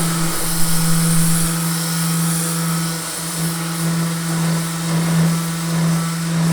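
Electric power sander running steadily, scuffing cured carbon fibre to prepare it for the next layers of laminate. It is a steady motor hum with a hiss of abrasion above it, wavering a little in loudness.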